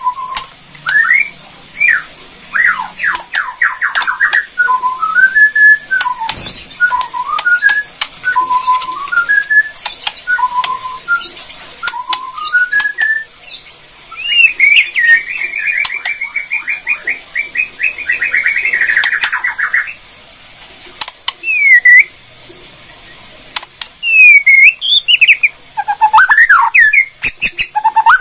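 White-rumped shama (Borneo murai batu) singing: varied clear whistled phrases mixed with fast rattling 'kretekan' runs, a long dense trill in the middle, and loud swooping notes near the end.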